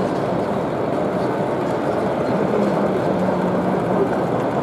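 Model train running along the layout track, a steady rumbling hum under the even background noise of an exhibition hall.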